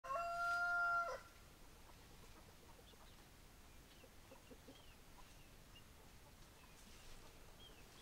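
Rooster crowing: one loud held call that cuts off about a second in. After it, faint short chirps and a few soft low calls over quiet outdoor background.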